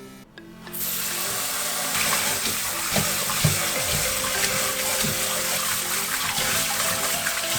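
Water running from a kitchen tap, starting abruptly about a second in and running steadily, with light background music underneath.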